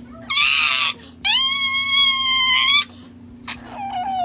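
Chihuahua screaming while its claws are clipped: three loud, high-pitched, drawn-out cries, the first short and harsh, the second long and held, the third starting near the end. It is a dog's exaggerated protest at having its nails trimmed.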